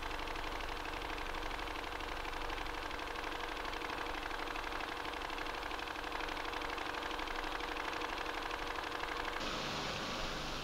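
Film-laboratory machinery running with a steady mechanical whirr, a fine rapid flutter and a few steady hum tones. Near the end the sound changes abruptly to a brighter hiss.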